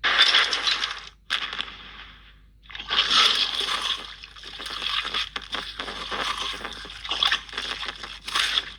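Designed creature sound effect for the D-Rex dinosaur: a run of harsh, noisy bursts that start and stop suddenly, loudest right at the start and again about three seconds in, with short gaps between them.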